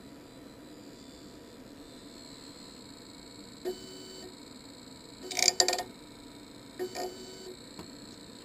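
Steady hum of a Monoprice MP Select Mini 3D printer running with its hot end heated. A few short clicks and brief buzzes come from the printer's control knob and mechanism as it is operated, the loudest cluster about five and a half seconds in.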